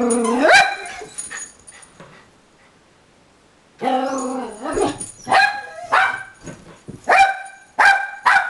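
Small dog barking at a window: a rising bark at the start, a pause of about two seconds, then a drawn-out, howling bark followed by a run of sharp barks, about one a second.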